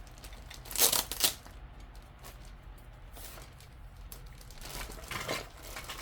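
Packaging being torn open by hand: two sharp tearing, crinkling bursts about a second in, then quieter rustling of the opened wrapping.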